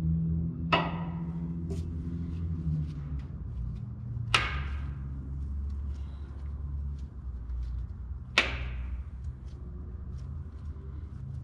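Click-type torque wrench clicking three times, about four seconds apart, each click ringing briefly, as the connecting-rod cap bolts reach their torque. A steady low hum runs underneath.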